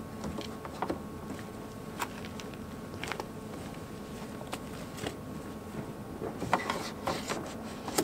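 Scattered light clicks and rustles of a heavy battery cable being handled and pulled through a vehicle's engine bay, then footsteps, with a denser run of knocks near the end and a faint steady hum underneath.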